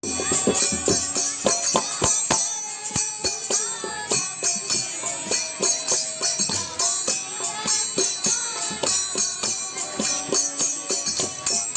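Live Indian folk music: jingling hand-held clappers and drum strokes keep a steady rhythm, with a melody over them.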